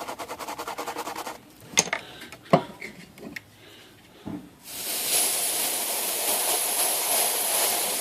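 Aerosol can spraying in one long steady hiss, from a little past halfway to the end, blasting dirt out of the grooves of a typewriter lid's raised label. Before it come a quick run of rapid ticks and a couple of sharp clicks.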